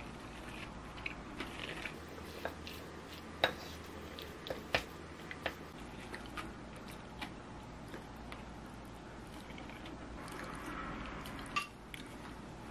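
A spoon stirring and mixing rice, tofu, cucumber and pollock roe in a ceramic bowl: soft squishing with scattered sharp clicks of the spoon against the bowl, the loudest a few seconds in.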